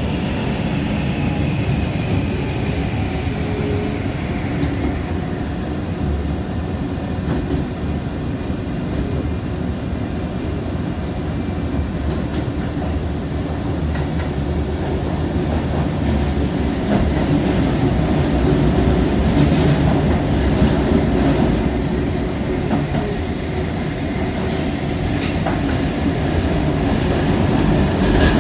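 Shibayama Railway 3500-series electric train running through a tunnel, heard from inside the car: a steady rumble of wheels on rail and running gear, with a faint falling whine in the first few seconds and the noise growing a little louder in the second half.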